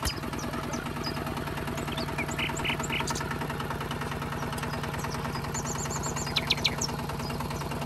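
Small motor of a homemade mini tractor running steadily, a constant hum with a fast even pulsing.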